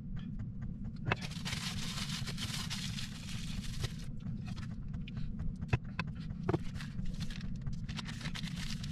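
Aluminium foil and plastic food packaging crinkling and rustling in spells, with a few sharp clicks, as ham and cheese are unwrapped and handled. Under it a steady low hum, which is the van's diesel heater running.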